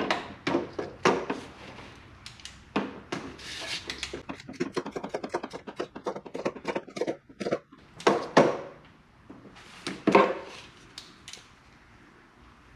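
Hand ratchet clicking in a quick, even run through the middle, among separate metal knocks and clatter of tools being handled and set down.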